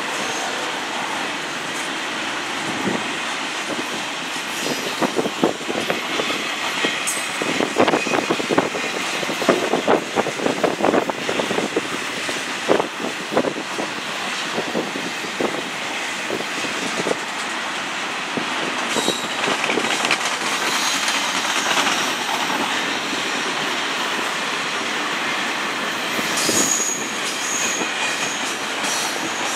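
Double-stack intermodal container train of loaded well cars rolling past steadily. Through the middle come runs of rapid wheel clacks and knocks over the rail joints, and near the end brief high wheel squeals.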